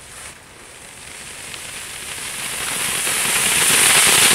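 A firework on the ground hissing as it burns, growing steadily louder.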